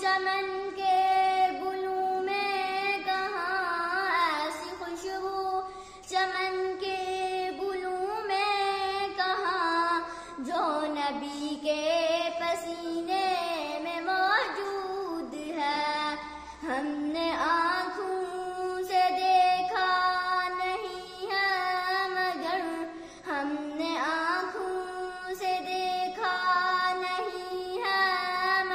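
A young girl's voice singing a naat, an Urdu devotional song in praise of the Prophet, in long held notes that bend up and down.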